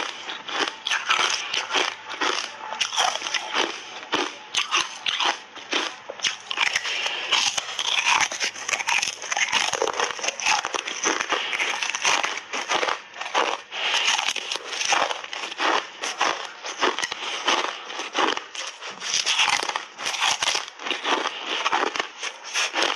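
Hard frozen cola ice bars coated in matcha powder being bitten and chewed: a dense, irregular run of crunches and cracks as the ice breaks between the teeth.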